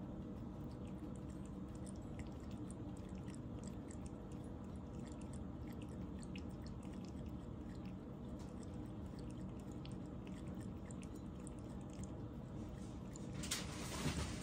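A cat licking and lapping a treat from a raised ceramic bowl: a run of faint, small wet licking ticks over a steady low room hum, with louder noise setting in near the end.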